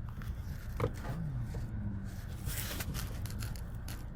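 Scraping and clicking of things being handled, with a short rasp about two and a half seconds in, over a steady low hum.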